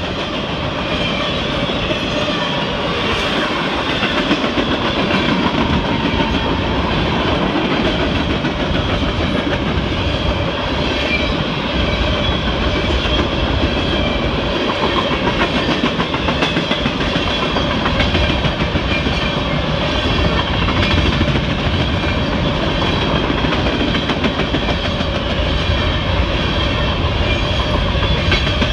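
Freight train cars rolling past on steel wheels, a steady, continuous rail noise.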